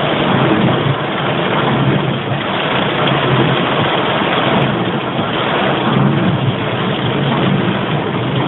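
Torrential rain beating steadily on a car's windshield and roof, heard from inside the cabin over the low running of the car's engine and tyres.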